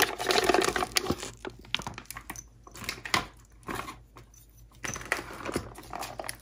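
A plastic bag crinkling and rustling as it is pulled off a slab of marinated pork in a pressure cooker's inner pot. The sound is dense for the first second or so, then thins to a few scattered light taps and rustles.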